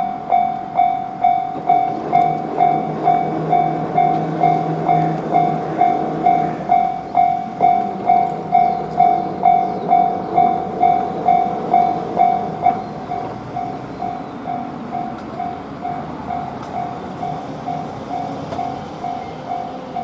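Japanese level-crossing bell ringing its rapid 'kan-kan' about twice a second, while a diesel train runs past over the crossing. The bell becomes noticeably quieter about two-thirds of the way through and keeps ringing.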